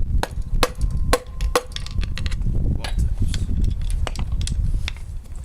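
Light hammer taps on a Honda D16 engine part to jar it loose: a string of sharp knocks, several in the first second and a half with a brief metallic ring.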